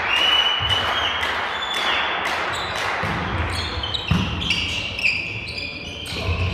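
A volleyball thuds as it is struck and bounces on a hard sports-hall floor, against steady echoing hall noise, with a sharper hit about four seconds in.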